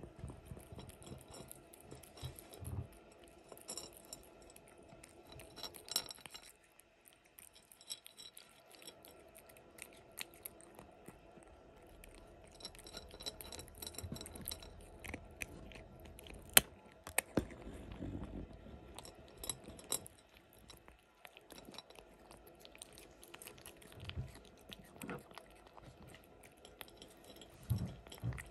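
Kitten eating a mix of dry kibble and wet cat food from a plate: irregular crunching and chewing, with small clicks and clinks of kibble against the plate. One sharp click comes a little past halfway.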